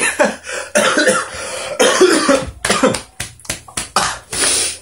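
A man laughing hard in breathless, coughing bursts.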